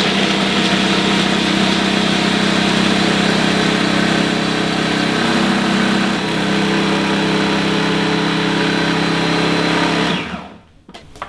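Food processor motor running steadily as it grinds soaked macadamia nuts and walnuts with onion and celery into a nut mixture, then switching off and winding down about ten seconds in.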